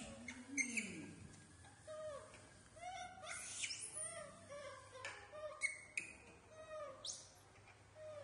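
Baby macaques giving a string of short chirping calls that rise and fall in pitch, one or two a second from about two seconds in, with brief crinkles of plastic snack bags being handled.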